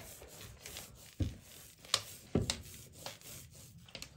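Hands rolling and working a greasy dough on the tabletop: a continuous rubbing, scuffing sound, with two thumps as the dough is pressed down about a second in and again past the middle.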